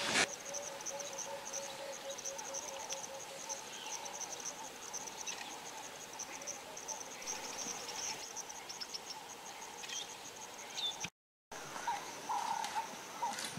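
Insects chirping in a steady, rapid, high-pitched pulsing trill, with a fainter, lower trill alongside. A brief click right at the start.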